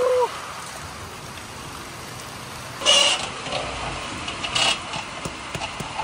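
Heavy rain falling steadily, with two short, sharp noises about three and four and a half seconds in.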